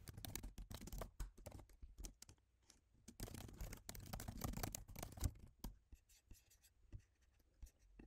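Faint typing on a computer keyboard: quick runs of key clicks in two bursts, thinning to a few scattered clicks in the second half.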